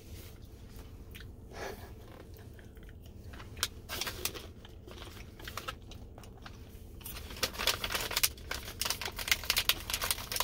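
Plastic snack pouch crinkling as it is handled, with scattered crackles at first and dense crinkling in the last few seconds, over the low steady rumble of a car cabin.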